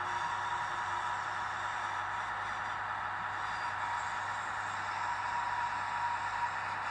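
Model railcar running slowly along the track: a steady whirring hum with a thin, even tone in it.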